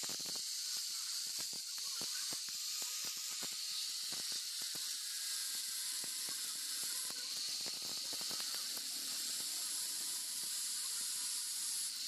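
Angle grinder running with an abrasive disc against a thin strip, giving a steady high hiss over a faint motor whine, with scattered scratchy clicks as the disc works the strip.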